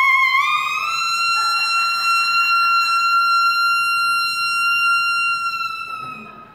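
Saxophone played solo, sliding up over the first second into one long high note that it holds steady for about five seconds before fading out near the end.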